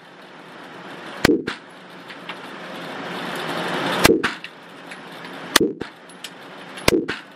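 Four single pistol shots, each a sharp crack, fired one at a time at uneven intervals: about a second in, then near four, five and a half and seven seconds.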